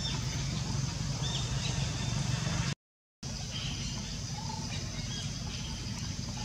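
Outdoor ambience: a steady low hum and hiss with short, high bird chirps now and then. The sound cuts out completely for about half a second near the middle.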